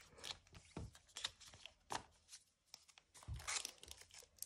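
Photocards being handled and stacked by hand: a run of small clicks, slides and rustles. There are soft knocks on the table about a second in and again near the end.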